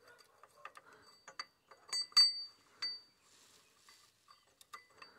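Metal parts of a dismantled R175 single-cylinder diesel engine, its timing gear and crankshaft, clinking and tapping against each other as they are handled: a string of short ringing clinks, the loudest about two seconds in.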